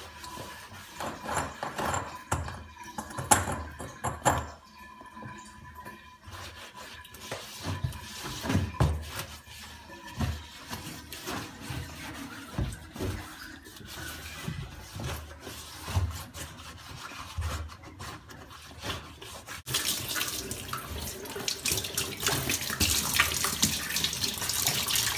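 Water splashing with scattered knocks and clicks as the dirt under a pulsator washing machine's removed impeller is washed out. About twenty seconds in, a loud, steady stream of running water starts.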